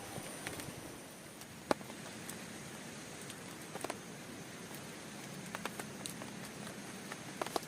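Steady rain with scattered single drops tapping sharply on a tent, one louder tap about a second and a half in.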